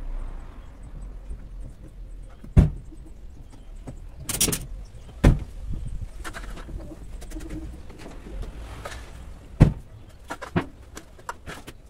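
Scattered sharp knocks and clicks, three of them loud, with a brief scraping rush in between, as a window glass and its rubber seal are pressed and tapped into the steel frame of a truck cab.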